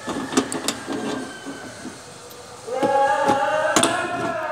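Adjustable wrench clicking and knocking on the brass flare nut of an air conditioner outdoor unit's service valve as the nut is tightened. From a little past halfway, a person's singing voice holds a long, slowly bending note over the clicks and is the loudest sound.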